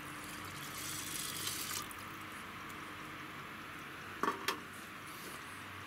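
Water poured from a stainless steel bowl into an aluminium mess tin of raw rice, a splashing pour lasting about a second: the water for cooking the rice. Two short knocks follow about four seconds in.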